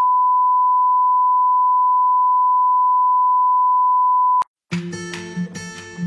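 A steady, loud, single-pitch reference test tone, the line-up tone that goes with colour bars, cuts off suddenly about four and a half seconds in. After a brief silence, music begins.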